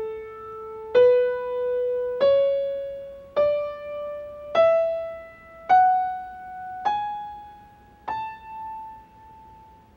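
An A major scale played one note at a time on piano, rising from the A above middle C to the A an octave higher. There are eight notes about a second apart, and the top A is left ringing and fades out.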